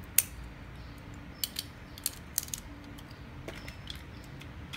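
Scattered sharp plastic clicks and ticks, about eight irregularly spaced, from a Beyblade launcher and top being handled and readied for a launch.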